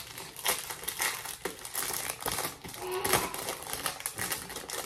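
Plastic packaging crinkling and crackling in irregular bursts as a pack of labels is opened by hand.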